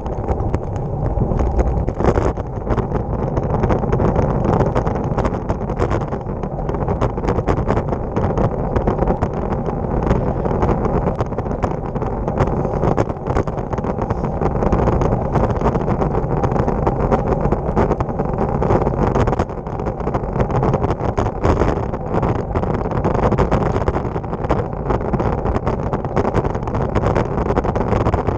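Road bike rolling along a rough country lane, heard through a handlebar-mounted camera: a steady rumble of wind on the microphone and tyre and road vibration, with many small knocks from bumps in the surface.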